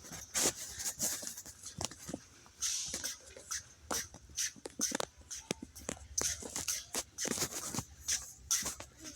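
A run of light, irregular clicks and taps, two or three a second, over a faint hiss.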